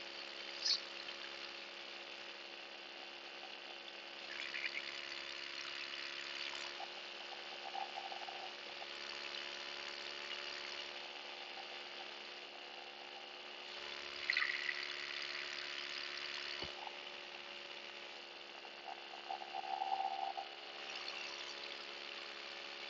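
Paramotor engine running at a steady throttle in flight, an even drone with a hiss above it that swells now and then, and a brief sharp blip about a second in.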